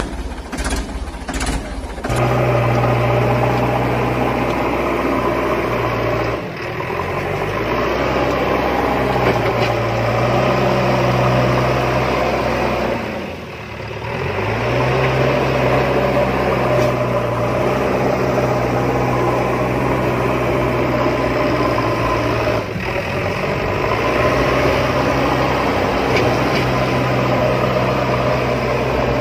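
A recorded engine sound running steadily at idle, with a constant low drone. It settles in about two seconds in after a few clicks and fades briefly about halfway through before coming back.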